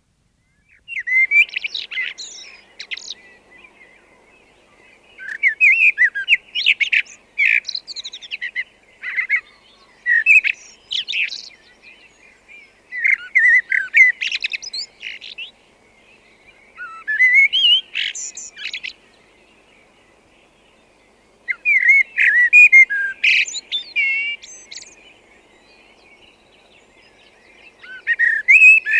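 Common blackbird (Turdus merula) singing: a series of separate warbled song phrases, each a couple of seconds long with short breaks between them, the phrases ending in higher, squeakier twitters.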